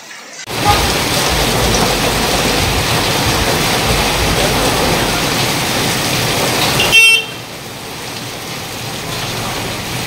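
Heavy rain pouring down on a street: a loud, steady noise. About seven seconds in, a vehicle horn gives a short toot, and after it the rain sounds quieter.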